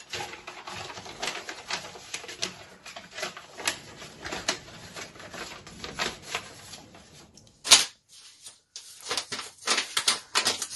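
A sheet of paper being folded and creased by hand into a paper aeroplane: dense crisp crackling and rustling. One brief louder crackle comes about three-quarters of the way through, then a short pause, and the paper rustling starts again.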